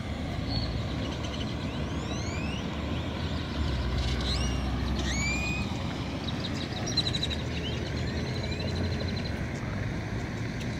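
Wind blowing on the microphone outdoors, with birds calling over it: a few short rising whistles in the first half, then a quick series of repeated high notes.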